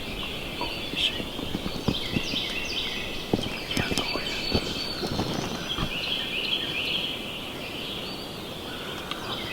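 Wild turkey gobbler gobbling several times in rapid rattling bouts, with faint rustling clicks in between.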